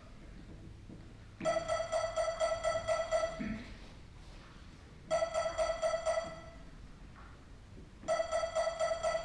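KORG MA-1 electronic metronome beeps at a single pitch, in three quick runs of about five beeps a second separated by short pauses.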